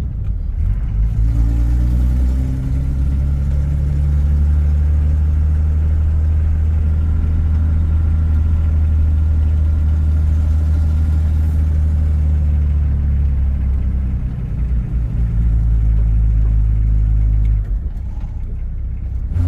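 Diesel engine of a 1987 Toyota Land Cruiser HJ60 (2H straight-six) heard from inside the cab while driving. It pulls under load, rising in pitch over the first couple of seconds, then holds a steady drone, and drops off in level near the end as the throttle eases.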